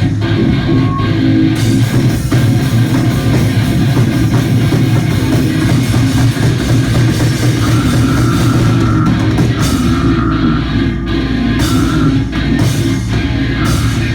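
Loud live hardcore band playing: distorted guitars, bass and a pounding drum kit in a dense, unbroken wall of sound, with the bass dropping deeper about ten seconds in.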